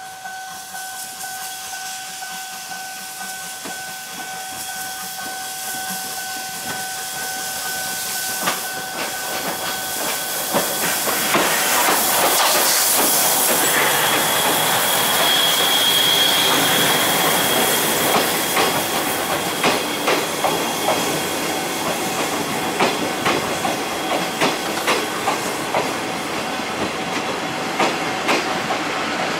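C58 steam locomotive approaching and passing close by, hissing steam, followed by its passenger coaches clicking over the rail joints at an even beat. A steady high tone sounds through the first ten seconds or so and stops as the locomotive draws near.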